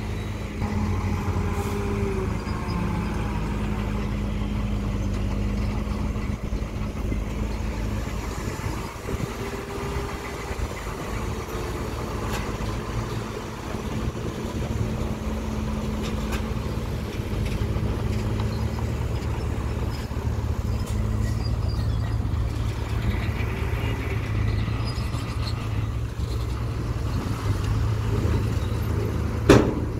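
A 5-ton dump truck's diesel engine runs steadily while the truck raises its bed and tips a load of soil. There is one sharp knock near the end.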